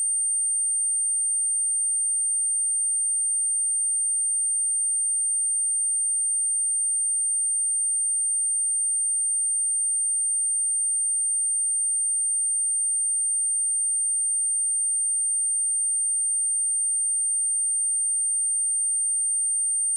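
Steady 8804 Hz sine-wave test tone: one pure, high-pitched whistle held unbroken at an even level.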